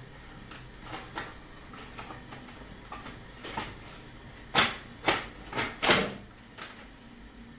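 Kitchen cupboard and items on it being handled: scattered light knocks and clicks, then four louder knocks in quick succession about four and a half seconds in.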